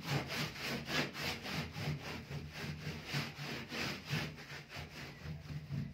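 Cloth scrubbing back and forth on the stainless-steel side panel of a gas cooker, in quick rasping strokes, a few a second.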